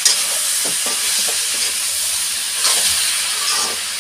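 Chopped potato, brinjal and adauri frying with masala in a pan, sizzling steadily while a spatula stirs them, with short scraping strokes against the pan now and then.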